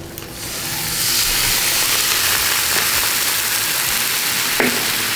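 Slices of meat frying in a hot nonstick pan, sizzling steadily. The sizzle swells up within the first second as squeezed lime juice goes into the pan.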